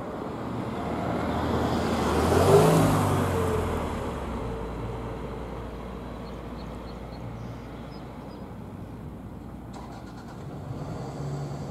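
A vehicle passing close by: its sound swells, peaks about two and a half seconds in with a drop in pitch, then fades to a steady low drone.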